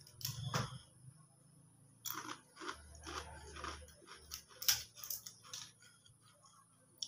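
Crispy salted-fish rempeyek crackers crunching as they are broken by hand and chewed: irregular short crackles, the sharpest about four and a half seconds in.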